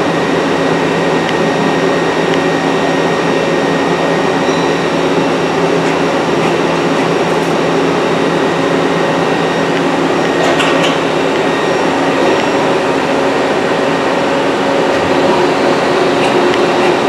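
Citizen M20 Type III CNC Swiss-type lathe running, a loud steady machine whir with several steady hum tones from its spindles and drives. A few light clicks come about ten seconds in as the tool turret indexes.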